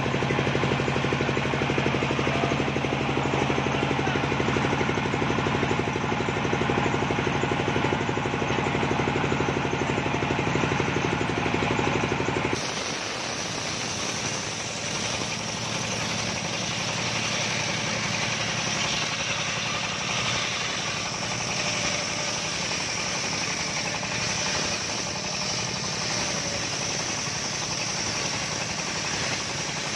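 Engine of a homemade circular sawmill running steadily. About twelve seconds in the sound changes abruptly to the large toothed circular saw blade ripping a coconut log lengthwise, with a steady high whine over the engine noise.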